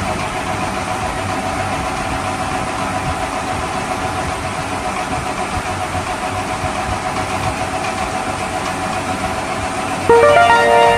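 A steady engine idling sound. About ten seconds in, a louder run of short stepped beeping tones comes in over it.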